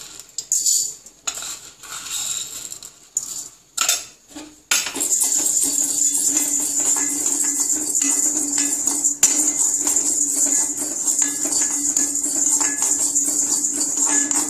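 Toor dal (split pigeon peas) tipped from a steel cup into an empty iron kadai with a few clatters. About five seconds in, a steady dry rattling and scraping starts as the dal is stirred with a spatula to dry-roast it without oil.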